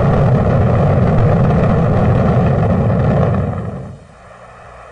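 Saturn V rocket's five F-1 first-stage engines at liftoff: a loud, deep, steady roar that fades away about three and a half seconds in, leaving a faint steady hum.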